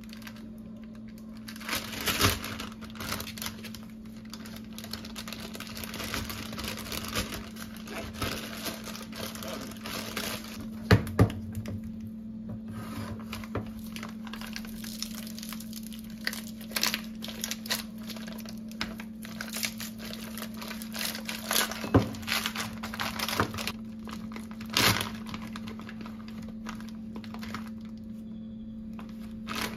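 Irregular crinkling and rustling, like something papery or plastic being handled, with scattered sharp clicks and taps over a steady low hum.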